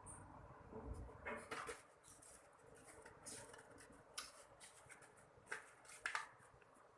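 Faint, scattered rustling and crinkling of packaging being handled while a squishy toy is wrapped, in a few short soft bursts with near quiet between.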